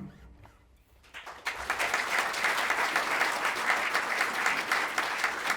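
Concert audience applauding after a piece ends: a moment of quiet, then clapping that swells in about a second and a half in and carries on steadily.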